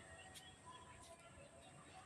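Near silence: faint background noise with a few faint ticks.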